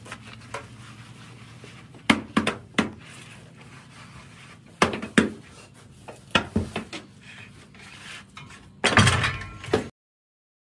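A string of sharp knocks and clatters in small clusters as a worker handles a tile mould on a hand-operated tile press, then about a second of scraping near the end before the sound cuts off suddenly.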